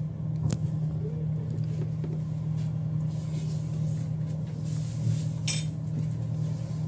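A steady low engine rumble, like a heavy vehicle running, with a few faint clicks over it.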